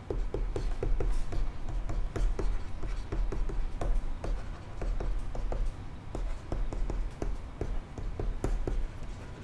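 Stylus writing on a tablet surface: irregular light taps and scratches of the pen tip as each stroke is drawn.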